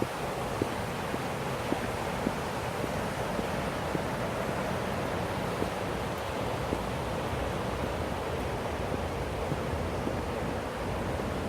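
Steady rushing of river water, an even noise without change, with a few faint irregular clicks.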